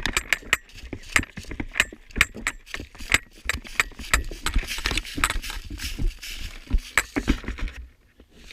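Footsteps crunching and rustling through dry leaves and brush, with loose gear rattling: a player moving quickly on foot. The crackling stops abruptly near the end.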